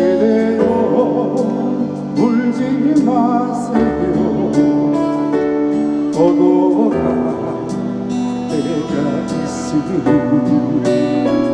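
Instrumental music with guitar: the introduction of a slow trot song, with sustained chords under a wavering melody line.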